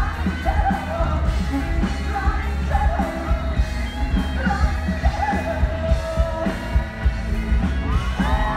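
Live rock band playing loud, with a male singer's voice over electric guitars, bass guitar and a drum kit.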